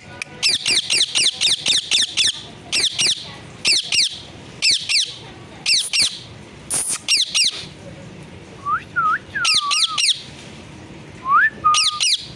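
Pet parrot calling: quick runs of short, sharp, high-pitched squawking calls, each sweeping downward, repeated throughout. A few lower whistled notes come in about three quarters of the way through.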